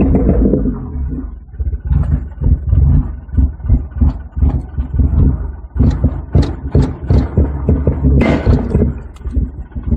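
1991 Acura Integra's 1.8-litre four-cylinder engine, 340,000 miles on it, idling roughly. After a steadier first second it settles into an uneven, lumpy pulsing of two or three beats a second, with a louder surge near the end.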